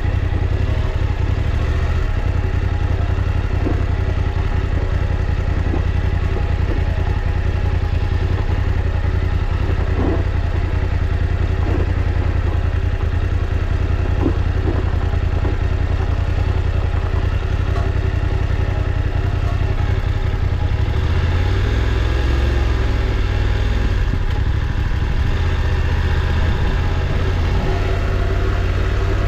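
Motorcycle engine running steadily under way, with a few short knocks about a third to halfway through. The engine note shifts about two-thirds of the way in.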